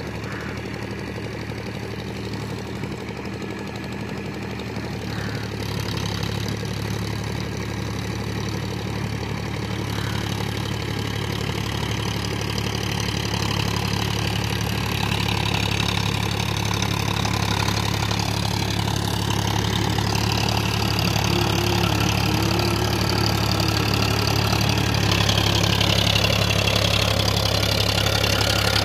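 Powertrac Euro 50 tractor's three-cylinder diesel engine running steadily at about 1500 rpm in third gear low range, pulling a 6-foot rotavator through wet paddy mud. It grows steadily louder as the tractor comes closer.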